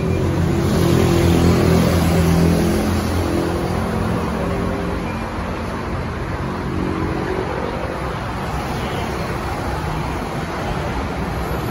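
Scania K230UB city bus's five-cylinder diesel engine running, a low steady drone that is loudest for the first few seconds and then settles a little quieter, with road traffic going by.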